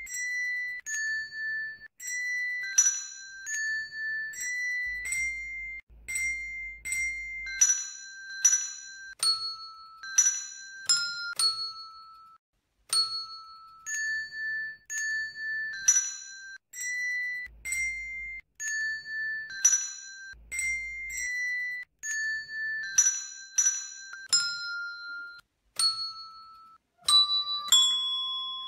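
A melody played on colour-coded hand bells, one bell per note: single struck notes, roughly one or two a second, each ringing briefly, stepping up and down the tune, with a few lower notes near the end.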